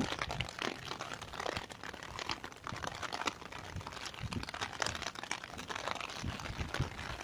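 Rain drops tapping irregularly on an umbrella overhead: a scatter of close, sharp ticks.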